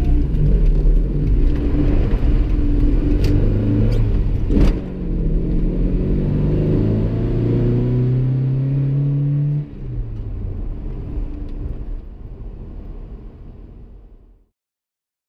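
1986 Toyota pickup's engine heard from inside the cab, pulling through the gears of its manual gearbox: a few sharp clicks and a gear change about five seconds in, then a steady rise in engine pitch until the throttle is lifted near ten seconds in. The sound then fades out.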